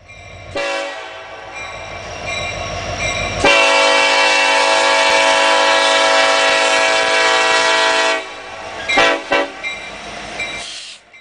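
Diesel locomotive's multi-chime air horn sounding a long blast that becomes much louder about three seconds in, followed by several short toots before it cuts off.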